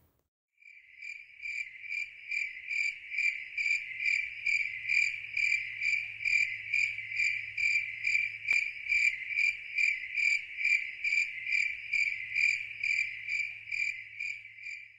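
Cricket chirping steadily, nearly three chirps a second.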